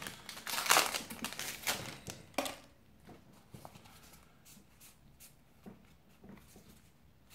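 Plastic wrapper of a Magic: The Gathering booster pack crinkling as the pack is torn open and the cards pulled out. It stops about two and a half seconds in, leaving faint soft clicks of playing cards being leafed through in the hand.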